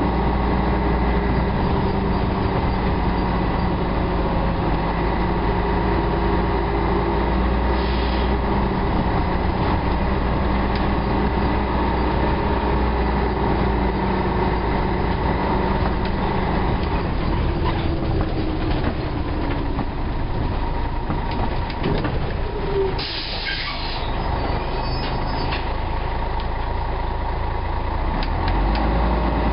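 Scania L113CRL bus's six-cylinder diesel running with the steady whine of its engine cooling fan, the vacuum-cleaner-like 'hoovering' sound. A short hiss of released air comes about two-thirds of the way through.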